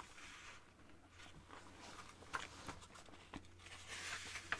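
Soft paper rustling and light taps from fingers handling the pages of an old paperback pocket guide, with a page turned near the end.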